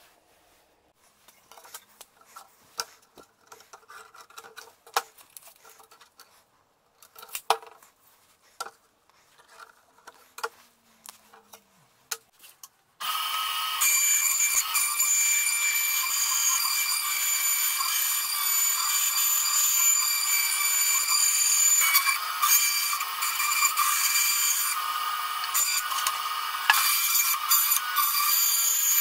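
Scattered light taps and knocks of handling for about the first half. Then a band saw starts abruptly and runs steadily, cutting a curve through a thin wood-grain board.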